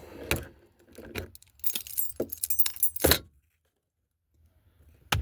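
A bunch of keys jangling and clinking for about a second and a half, after a few scattered knocks, then stopping; a single sharp click near the end.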